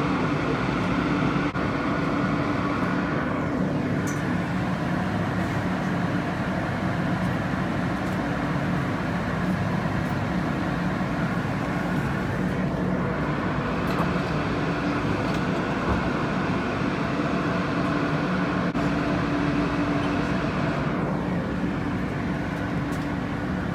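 Alstom R160A New York City subway car running at a steady speed, heard from inside the car: a continuous rumble of wheels on rail with a steady low hum.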